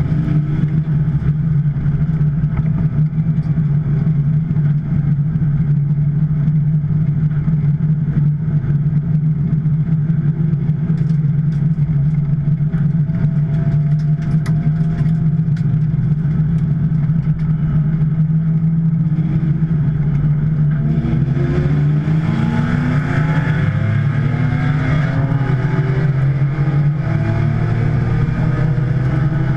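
A 2010 Porsche 911 Turbo's twin-turbo flat-six under racing load. It holds a steady drone for most of the time, then from about two-thirds of the way through its pitch rises and falls repeatedly with throttle and gear changes.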